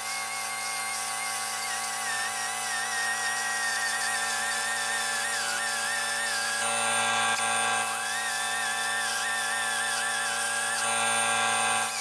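High-speed die grinder spinning a carbide burr against an aluminum TIG weld, flattening it before sanding. It makes a high whine that wavers and sags as the burr bites into the metal.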